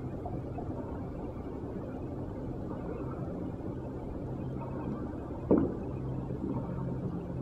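Low steady muffled hum with faint low tones, and one thump on the wooden floor about five and a half seconds in as the dancer comes down from the pole.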